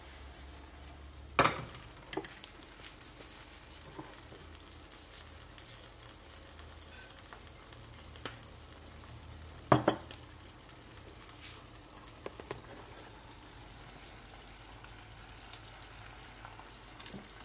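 Cream stew ingredients sizzling in a frying pan on a gas burner, a steady crackle, with a few knocks of the pan or utensil, the loudest about a second and a half in and again near ten seconds.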